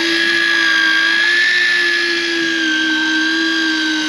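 Electric deep-drop fishing reel motor whining steadily as it winds in line against a hooked fish, its pitch wavering slightly under the load.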